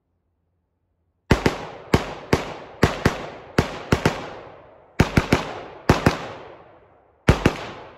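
AR-15 rifle with a Franklin binary trigger firing a rapid string of shots, starting about a second in, many in close pairs as the trigger fires on both pull and release, with a few single shots among them; each report rings on briefly.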